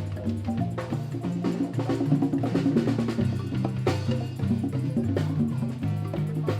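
Marimba band music: low wooden bars struck in quick repeated notes that step up and down, with a drum kit playing along.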